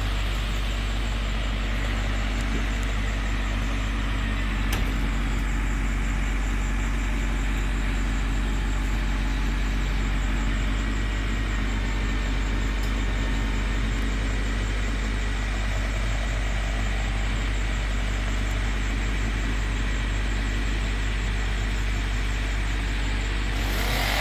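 A large engine idling steadily with a constant low hum, with a single click about five seconds in.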